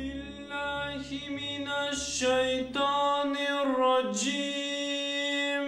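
A solo voice chanting unaccompanied in long, held notes that slide from one pitch to another, over a low drone that fades out about two seconds in.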